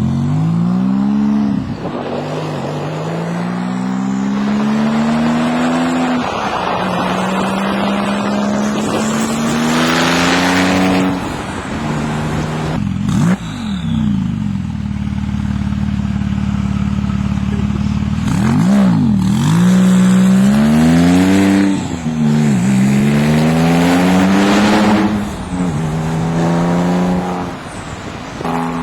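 Porsche 997 Turbo's twin-turbo flat-six, breathing through muffler bypass straight pipes and sport catalytic converters, pulling hard. The engine note climbs through the gears several times, dropping at each upshift, with a steadier stretch of cruising near the middle.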